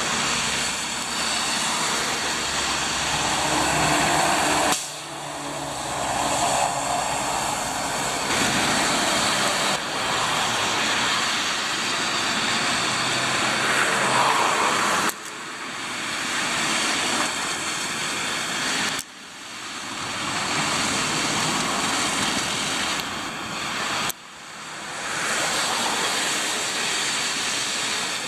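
Road traffic on wet, slushy streets: cars and lorries passing, with steady tyre hiss off the wet road and engine noise. The sound changes abruptly about every five seconds.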